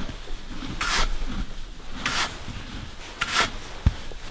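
A brush rubbing over a horse's coat in three long strokes about a second apart, with the horse munching its feed underneath. A single sharp knock comes near the end.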